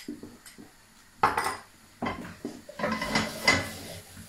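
A spoon knocking and scraping against a metal sauté pan as tomato puree is worked into the frying vegetables: a loud clatter about a second in, then a run of quicker clinks and scrapes.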